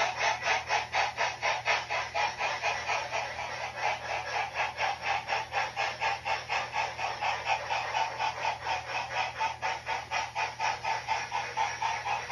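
Model steam locomotive of Tweetsie #12 chuffing steadily at about four chuffs a second as it runs with its train.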